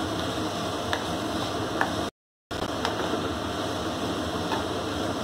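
Sliced mushrooms frying in a non-stick pan with a steady sizzle, a wooden spatula stirring and scraping through them a few times. The sound drops out for a moment about two seconds in.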